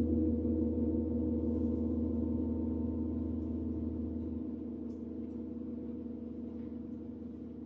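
A gong ringing on after a single mallet stroke, slowly fading, its tones wavering and shimmering. Its deep low hum drops away about four seconds in.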